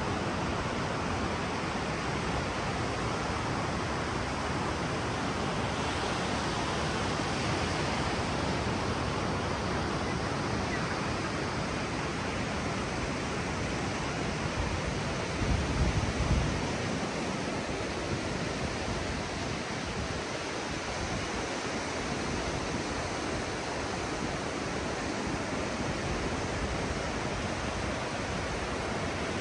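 Ocean surf washing steadily onto a sandy beach, a continuous even wash of breaking waves. A brief low rumble rises over it about halfway through.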